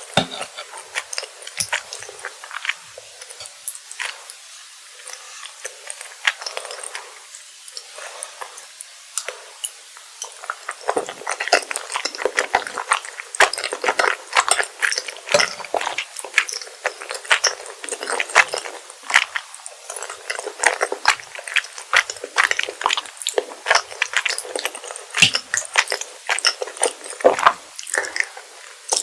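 Close-miked chewing of rosé tteokbokki: chewy rice cakes eaten with many quick, wet mouth clicks and smacks. These are sparse for about the first ten seconds, then come thick and fast.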